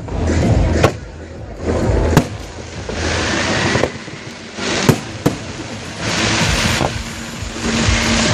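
Fireworks display: aerial shells bursting with four sharp bangs, between stretches of dense crackling from the bursts.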